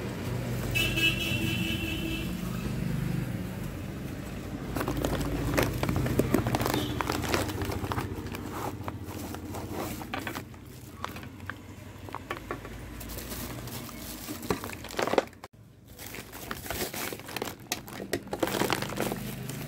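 A cardboard product box being handled and opened and a plastic lantern pulled from its wrapping: crinkling and rustling with scattered clicks and knocks.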